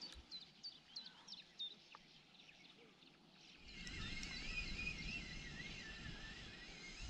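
Songbirds singing: a run of short, quickly falling high notes, two or three a second, for the first couple of seconds. From about halfway a continuous wavering warble takes over, with a low rumble of wind or handling noise on the microphone.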